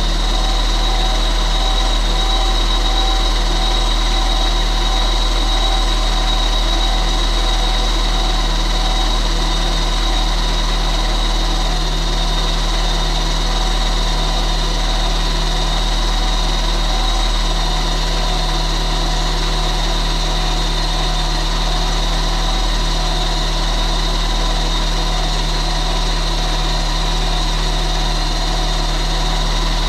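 Turbocharged Honda S2000 engine idling steadily after its first start-up, with a steady high whine over the low running note and no revving.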